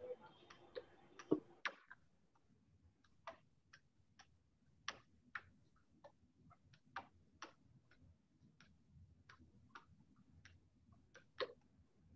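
Faint, irregular keystrokes on a computer keyboard: sharp clicks spaced unevenly, about one to two a second, over quiet room tone.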